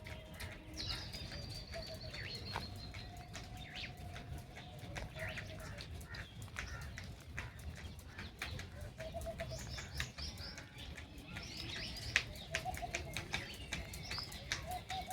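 Birds chirping, with short low cooing notes and many scattered sharp clicks and taps over a steady low rumble.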